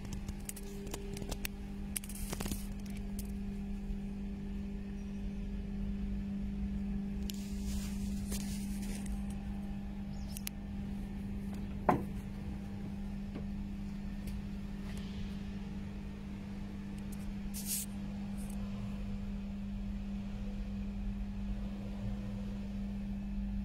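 A steady low machine hum that does not change, with a few scattered clicks and knocks and one sharp knock about twelve seconds in.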